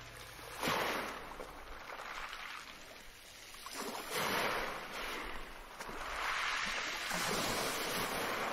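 Sea waves washing in slow swells. The loudest comes in sharply about a second in, and a longer, drawn-out wash follows near the end.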